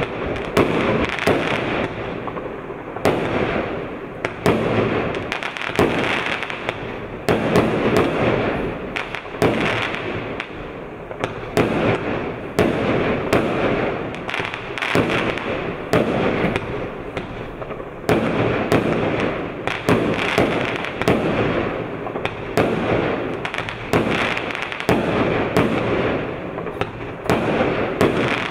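A firework cake firing shot after shot. The sharp bangs of launches and bursts come about once or twice a second, with a steady noise filling the gaps between them.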